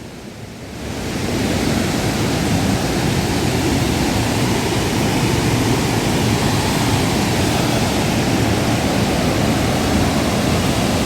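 Steady rushing roar of Dassam Falls, a large waterfall, swelling up over the first second or so and then holding level.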